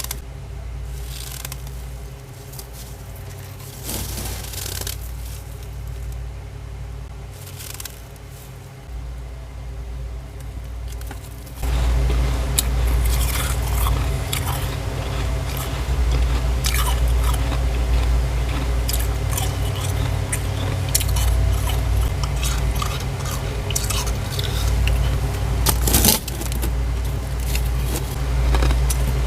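Thick, fluffy freezer frost crunching as it is scraped off a deep freezer's walls: many short, crisp crunches that get denser and louder about twelve seconds in. A steady low hum runs underneath.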